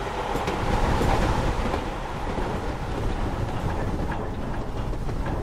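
Hornby model train rolling along the track: a steady rumble of wheels on rail, with a few faint clicks.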